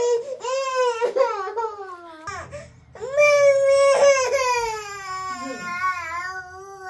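A baby crying: a few short cries, then one long, high wail starting about three seconds in that wavers and slowly falls in pitch.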